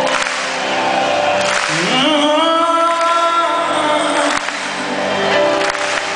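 Live rock band playing, with a male lead vocal singing over guitars and keyboards; about two seconds in, a long note slides up and is held for a couple of seconds.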